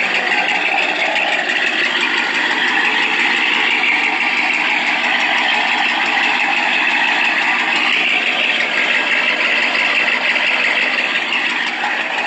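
A car running, heard from inside the cabin as a steady, even hum and hiss.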